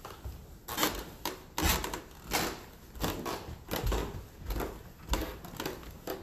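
Footsteps climbing carpeted stairs: a steady run of thuds, one with each step, about three every two seconds.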